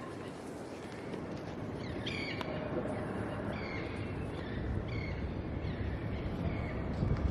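A bird calling repeatedly in short, harsh calls, about one a second from about two seconds in, over a steady rush of background noise.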